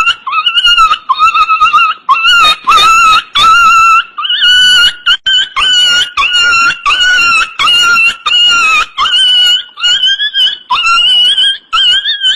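A squeaky, high-pitched comic sound effect standing in for the singing, carrying a song's melody in short, quick notes whose pitch steps and wobbles from note to note.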